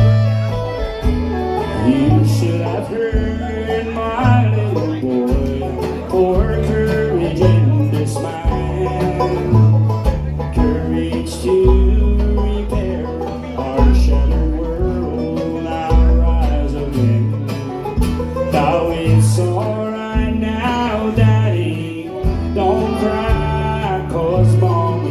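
Bluegrass band playing an instrumental break: banjo rolls over guitar, with a bass line stepping between notes about once a second.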